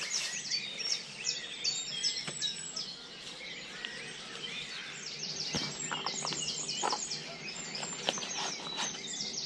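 Songbirds singing a fast, repeated phrase of quick high notes, with a few knocks and rustles from camping gear being packed away.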